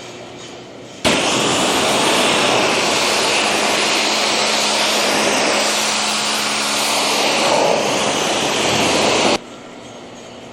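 Pressure washer spraying a high-pressure jet of water onto a conveyor belt: a loud, even hiss that starts suddenly about a second in and cuts off abruptly near the end as the trigger is released.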